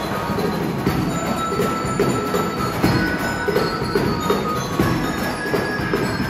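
Juvenile jazz marching band playing as it marches: buzzing kazoos carry the tune over a steady drum beat, with bell-like glockenspiel notes above.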